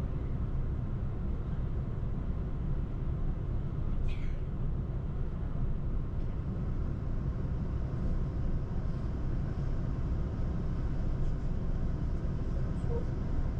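Diesel express train running, heard inside the passenger car: a steady low rumble of wheels on rail and engine, with a brief high squeak about four seconds in.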